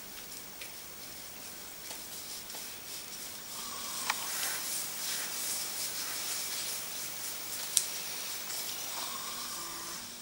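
Gloved hands rubbing foot cream into a bare foot during a massage: a soft, steady swishing hiss that grows louder a few seconds in, with a couple of faint clicks.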